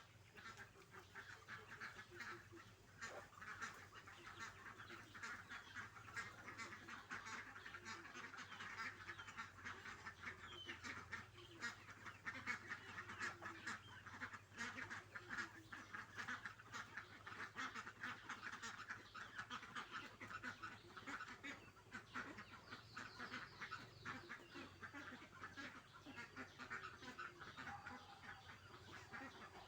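A steady stream of calls from farm fowl, many short calls in quick succession throughout.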